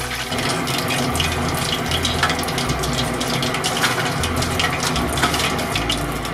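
Chicken karaage, potato-starch-coated chicken thigh, deep-frying in hot oil: a dense, steady sizzle full of sharp crackles and pops.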